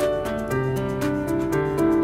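Gentle background music: held keyboard-like notes changing every half second or so over a light, quick ticking beat.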